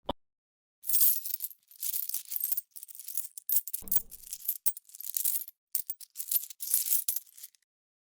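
Small metal pieces jingling and clinking in a series of shaken bursts for about six seconds, after a single short click at the start.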